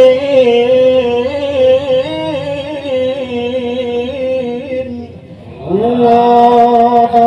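A man reciting the Quran in the melodic, drawn-out mujawwad style through a microphone. He holds one long ornamented note that wavers and fades out about five seconds in. After a short breath he starts a new phrase on a rising note and holds it.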